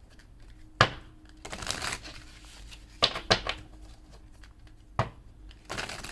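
Tarot or oracle cards being handled: a few sharp snaps and taps of cards, about a second in, twice around three seconds in and once at five seconds, with short rustles of cards sliding against each other in between.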